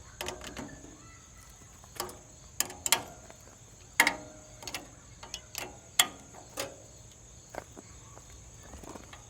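Scattered metallic clicks and clinks, some with a short ring, from a wrench working the sawmill's blade-tracking lock bolts as they are tightened. Crickets chirp steadily behind.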